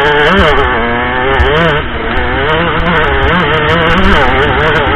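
Single-cylinder dirt bike engine revving up and down with the throttle while riding a rough trail, with scattered sharp clicks over it.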